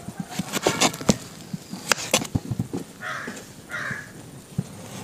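Knife chopping through raw potato onto a cutting board in irregular sharp knocks, while a crow caws twice about three seconds in.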